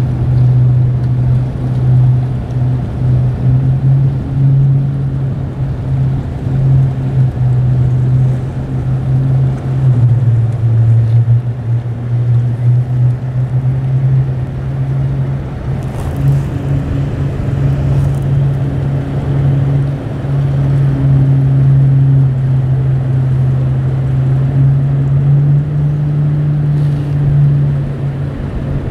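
Twin outboard motors on a center-console boat running at low speed: a steady low drone whose pitch dips briefly about ten seconds in.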